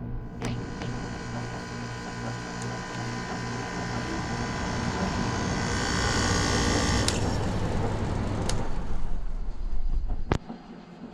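2012 Frigidaire 5,000 BTU window air conditioner running on high cool, its Rechi rotary compressor and fan humming steadily with air hiss. A few sharp clicks are heard; the low hum stops about eight and a half seconds in, and near the end the rest cuts out suddenly with a click as the unit shuts down.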